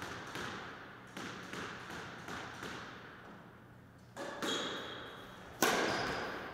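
Squash rally: the ball cracking off rackets and the walls in quick, echoing knocks, a pair every second or so. A short squeak about four and a half seconds in, and the loudest crack near the end, ringing on around the court.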